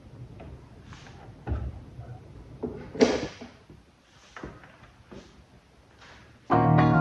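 A series of light knocks and clicks, about eight, the loudest about three seconds in. Music starts suddenly near the end.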